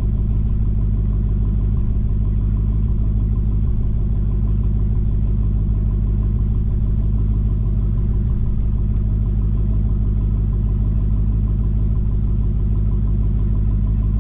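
Dodge Challenger Hellcat's supercharged 6.2-litre V8 idling steadily, with a deep, even rumble.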